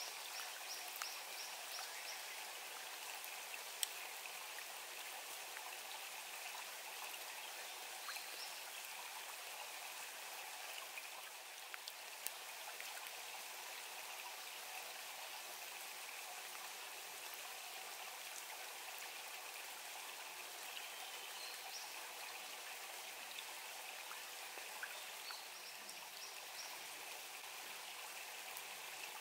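Rain falling steadily on plants and ground: an even hiss with scattered ticks of single drops.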